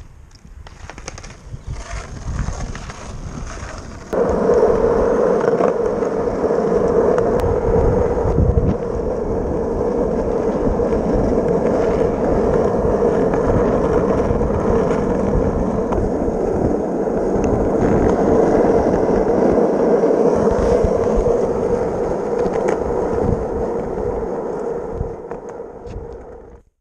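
Skateboard wheels rolling over rough asphalt, heard close up from a camera riding along. The steady rolling noise starts abruptly about four seconds in, after a few scattered knocks, and fades out near the end.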